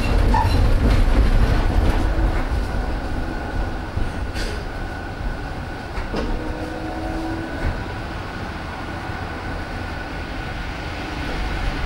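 Interior running noise of an Esslingen GT4 articulated tram on metre-gauge track: a steady heavy rumble with a thin steady whine, and a few sharp knocks from the wheels and track, clearest about four and six seconds in. The rumble eases through the middle and picks up again near the end.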